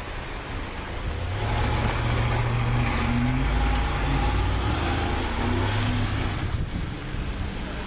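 Pickup truck with a utility body driving through deep snow, engine revving as it passes; the engine note rises and falls, loudest through the middle and easing off near the end, over the rushing noise of tyres churning snow.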